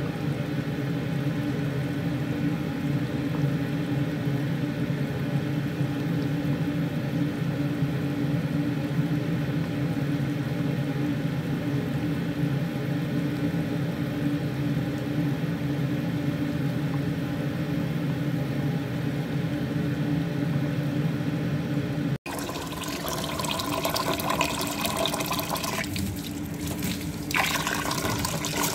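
A pot of chicken broth at a rolling boil on a gas stove, a steady low rumble. After a cut about 22 seconds in, tap water runs into a metal bowl of rice being rinsed.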